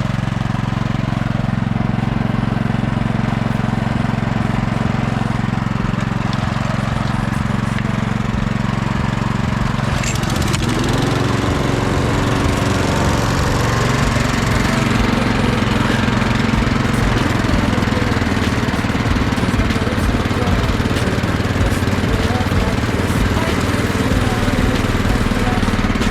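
Small petrol mower engine running steadily on a test of a push mower converted to a tow-behind mower for a garden tractor. About ten seconds in the pitch shifts and the sound turns rougher and fuller.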